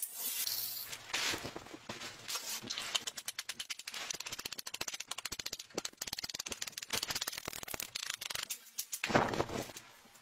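Electric arc welding on steel bar stock, crackling and sputtering rapidly and unevenly for several seconds. A grinding hiss comes before it in the first couple of seconds, and a louder burst of noise comes near the end.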